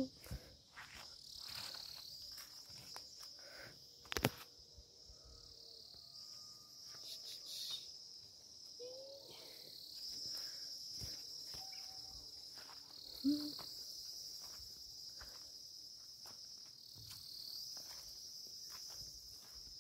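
Outdoor insect chorus: a steady high-pitched chirring that swells and eases. A sharp click about four seconds in and a brief hum-like voice sound a little past the middle.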